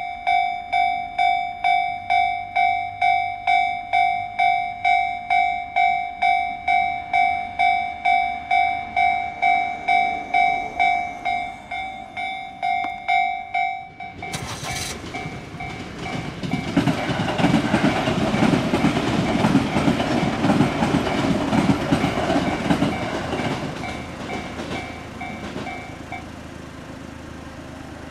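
Railway level crossing warning bell ringing at about two strikes a second. About halfway through, a train runs over the crossing with a rumble and wheel clatter that drown the bell. The bell stops shortly before the end.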